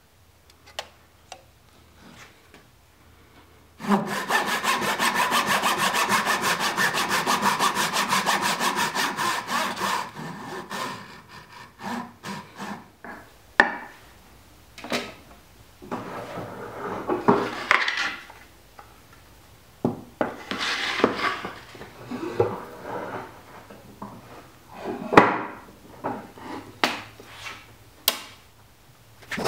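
Thin Japanese pull saw cutting dovetail tails in a hardwood board, running along a magnetic dovetail guide. After a few faint clicks, it saws in rapid, even strokes for about six seconds. It then cuts in shorter spells, with light knocks and pauses between them.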